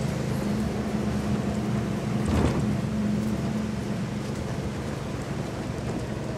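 Vehicle engine running steadily as it drives along a dirt trail, a low drone with one thump about two and a half seconds in.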